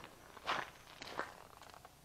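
Footsteps on gravel, about two steps a second, fading out after about a second and a half.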